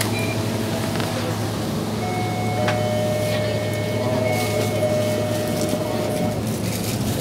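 Steady low drone and road noise of a moving vehicle, heard while riding in it. From about two seconds in until about six seconds, a faint steady whine sits on top.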